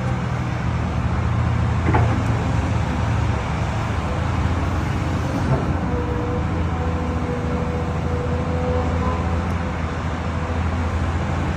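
Diesel excavator engine running steadily, a low even hum with a faint higher tone coming and going over it.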